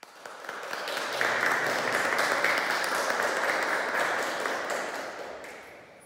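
Audience applauding, swelling over the first second and dying away near the end.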